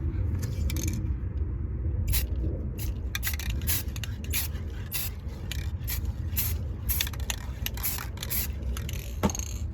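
Aerosol spray paint can giving a rapid run of short hissy bursts, about three a second, from about two seconds in, over a steady low rumble.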